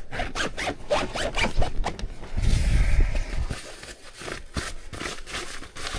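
Zipper being pulled in runs of quick scratchy strokes, with a short low rumble about halfway through.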